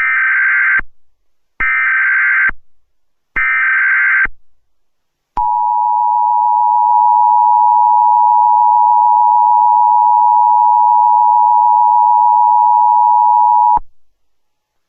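Emergency Alert System tones: three short bursts of SAME header data, each just under a second, then the EAS two-tone attention signal, a steady pair of close tones held for about eight seconds before it cuts off suddenly.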